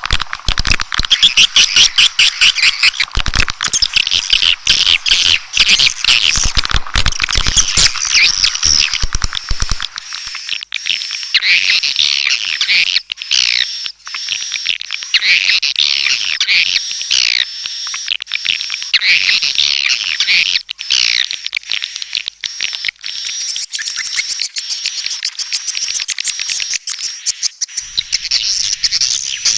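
Swiftlet call recording: dense, rapid twittering of swiftlets, with many quick downward-sweeping chirps. Sharp clicks run through the first ten seconds or so. This kind of recording is played to lure swiftlets into a nesting house.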